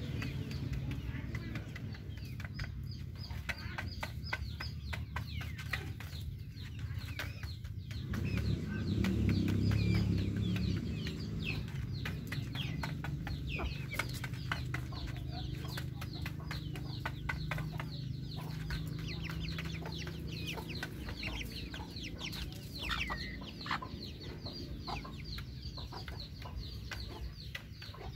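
Chickens clucking, with many quick, high falling cheeps throughout. A low rumble swells about eight seconds in and fades by about eleven seconds.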